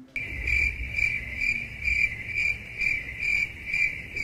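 Cricket chirping sound effect: a steady high trill pulsing about twice a second over a low background rumble, cutting in suddenly just after the start, the comic 'crickets' cue for an awkward silence.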